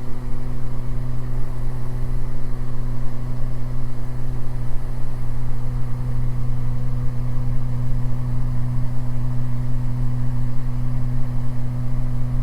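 Steady drone of a Beechcraft G58 Baron's twin piston engines and propellers in the climb, heard inside the cabin, one even low hum with the props synchronised.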